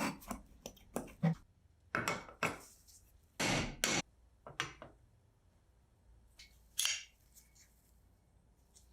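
Tools and small metal parts being handled on a workbench: a string of separate knocks and clinks, with one longer half-second noise about three and a half seconds in.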